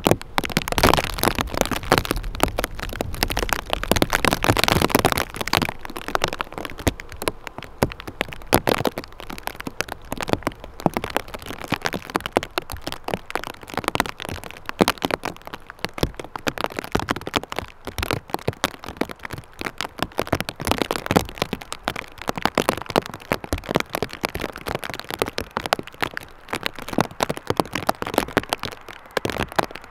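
Rain shower: a dense, irregular crackling patter of raindrops striking close to the microphone, heaviest in the first six seconds or so, with a low rumble of wind in the same stretch.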